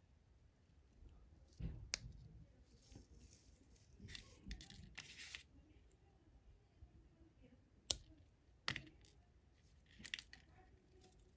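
Faint handling sounds of green monofilament fishing line being worked by hand around a snap swivel, with a few sharp clicks from fishing pliers cutting the tag end of the knot, the loudest about eight seconds in.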